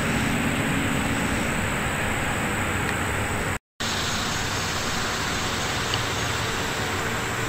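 Steady outdoor background noise, a dense hiss over a low rumble, cutting out completely for a moment about three and a half seconds in.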